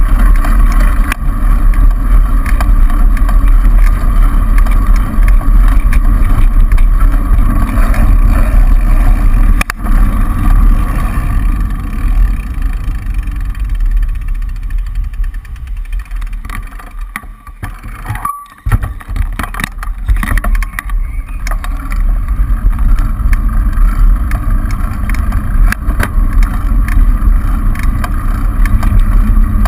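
Wind buffeting a bicycle-mounted action camera's microphone while riding, a loud, steady low rumble mixed with road noise. It eases off for a few seconds past the middle, then picks up again.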